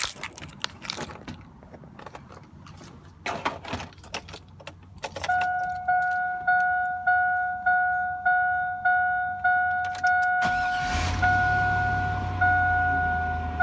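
Keys jangling and clicking for a few seconds, then a rapid series of electronic beeps in a car, about three a second. About ten seconds in, a low steady hum starts and the beeping changes to longer tones with short breaks.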